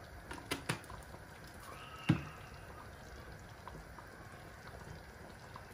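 Chicken in a tomato, yogurt and cream sauce simmering in a pot, with faint scattered bubbling pops. A few clicks come near the start and one dull thump about two seconds in.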